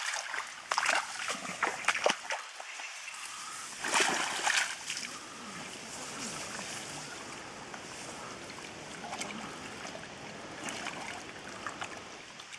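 Water splashing and sloshing, with a loud splash about four seconds in, then water trickling steadily.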